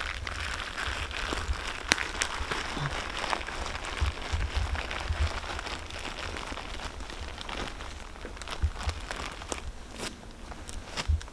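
Plastic tarpaulin crinkling and rustling as it is folded and rolled up by hand, with scattered sharp crackles.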